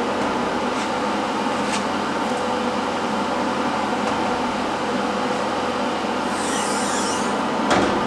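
Steel blade-and-motor head of a home-built swingblade sawmill being swung by hand from horizontal to vertical: a brief high metallic squeak, then a single clunk near the end as it comes into position, over a steady mechanical hum.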